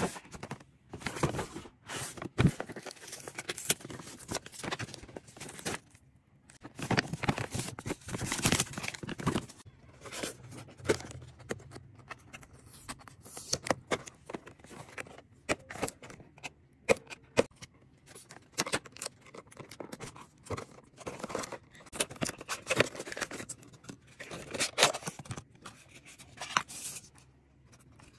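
Hands opening a small cardboard box and unpacking a plastic wireless mouse: irregular rustling and scraping in short bursts, with scattered sharp clicks.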